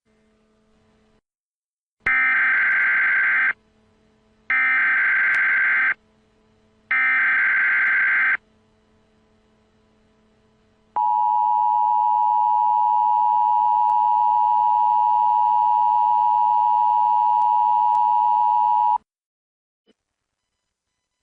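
US Emergency Alert System tones: three harsh, buzzing digital data bursts of the SAME header, each about a second and a half long and a second apart. After a short gap comes the EAS two-tone attention signal, a steady, loud dual-pitch tone held for about eight seconds, which marks the start of an emergency alert broadcast.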